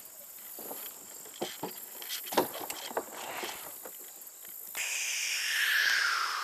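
Scattered footsteps knocking on the boards of a wooden dock, several single thuds a few tenths of a second apart. About five seconds in, a louder rushing, swishing noise with a falling pitch takes over.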